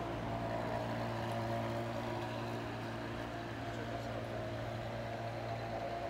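Ferrari 599 GTO's V12 engine running steadily at low revs as the car pulls slowly away in first gear, with no revving.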